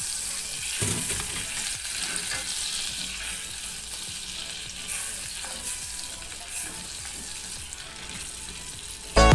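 Butter sizzling and bubbling as it melts in a metal saucepan, with a wooden spoon stirring it around the pan. Music cuts in loudly right at the end.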